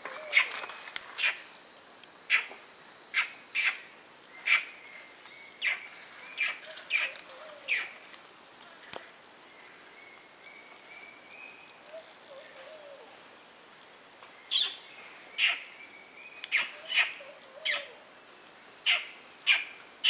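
Monkeys giving short, sharp calls over and over, in clusters with a lull of several seconds in the middle, over a steady high insect drone.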